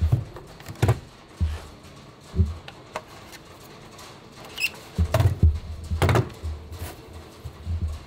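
Power tools and a dust extractor hose being handled and set down on a wooden workbench: a string of dull thumps and sharper clicks, thickest around five to six seconds in.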